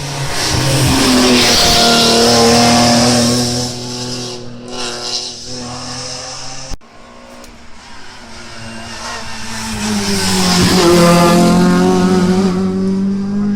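Hill-climb race cars running at high revs past the spectator, one after another: a loud pass that fades out, then after a sudden break a second car that builds up, passes loudly with a drop in engine pitch, and keeps pulling away. There may be a touch of tyre squeal.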